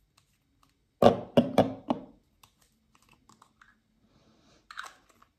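Shower-gel bottles knocking and clacking together as they are moved around and rearranged in a row: a quick run of several knocks about a second in, then a lighter clack near the end.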